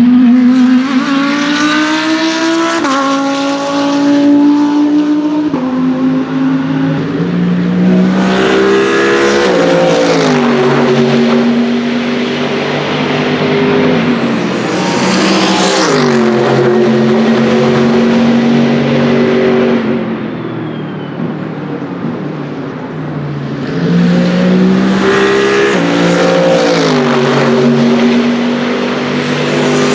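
About four GT3 race cars pass one after another, each accelerating hard through the gears. Each engine note climbs and then drops at every upshift. The first is an Audi R8 LMS evo's V10; the one near the end is a Mercedes-AMG GT3's V8.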